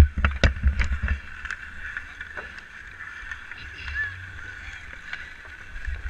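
Hockey skate blades scraping and carving the ice in strides, with a quick run of sharp stick clacks in the first second and a half. Wind rumbles on the microphone throughout.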